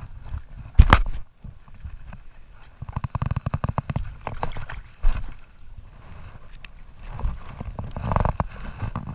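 Knocks and bumps on a plastic kayak hull with water splashing as a hooked fish is grabbed over the side: one loud knock about a second in, then a rapid flurry of taps a couple of seconds later.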